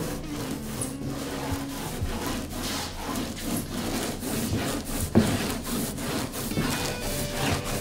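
Paint roller rolling primer over a wooden set panel: a steady run of repeated rasping, rubbing strokes.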